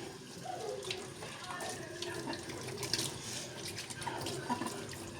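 Water running from a tap into a sink.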